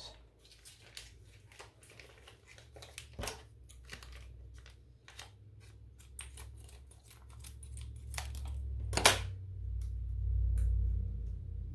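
Packaging crinkling and tearing as a cheese sauce packet is opened and handled, with scattered small clicks. A sharp knock about nine seconds in is followed by a low rumble.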